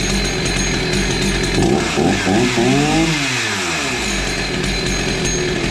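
Chainsaw engine running at idle, revved up once about two seconds in and easing back down to idle.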